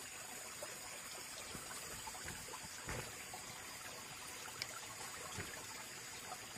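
Water of a shallow rocky stream trickling and flowing steadily, with a few faint soft knocks.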